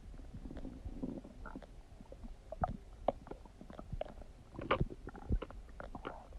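Human stomach gurgling while digesting: a low rumble broken by scattered short pops and bubbling gurgles, the loudest cluster about three-quarters of the way through.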